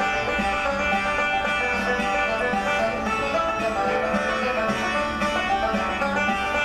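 Background music led by plucked strings, a busy run of quick notes at a steady level.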